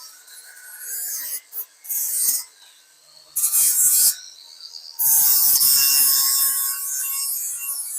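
Abrasive sanding on a Raleigh Chopper's metal frame, taking off pit marks and old grind marks before priming. It comes as a few short scratchy passes, then one longer pass from about five seconds in.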